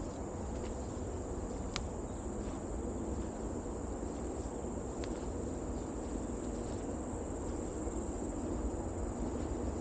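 Steady high-pitched insect drone over a continuous low rustling noise, with two brief sharp clicks, about two and five seconds in.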